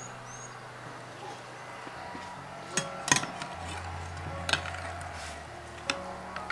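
A metal serving utensil clinks and scrapes against a white casserole dish while pickled fish and onions are lifted out. There are about five sharp clinks, starting near three seconds in, with the loudest just after the first.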